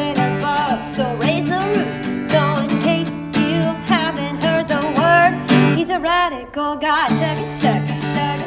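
Upbeat worship song playing: singing over strummed guitar, the bass and backing dropping out briefly about six seconds in.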